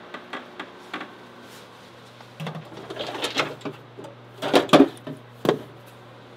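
A refrigerator door being opened and a drawer of aluminium drink cans rummaged through, the cans clinking and knocking together as one is pulled out, with the loudest clinks a little past the middle. A steady low hum runs underneath.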